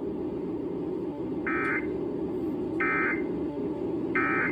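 Emergency Alert System end-of-message data bursts: three short, buzzy digital tone bursts about 1.3 seconds apart, the signal that closes the alert. A steady low hum runs underneath.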